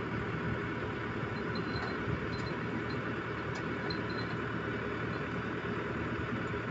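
Hyundai 320 LC7 excavator's diesel engine running steadily.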